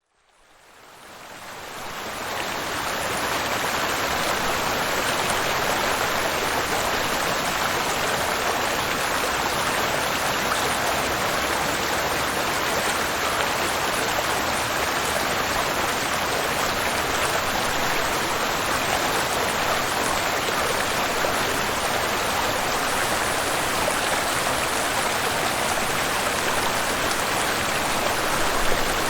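Waterfall and flowing river: a steady, unbroken rush of water, fading in over the first few seconds.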